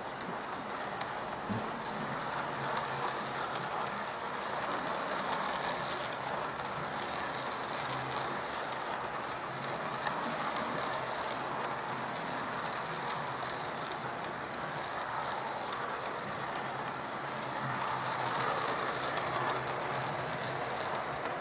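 Bachmann USA tank 0-4-0 model locomotive running steadily, its motor and wheels making a continuous whirring rumble with light ticks from the track, as it hauls a ten-coach train with ease at low controller power. The noise swells a little near the end as the coaches pass close.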